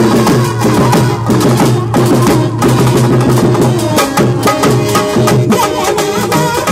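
Live folk music dominated by a barrel hand drum struck rapidly with the hands in a dense, fast rhythm, with pitched melodic accompaniment underneath.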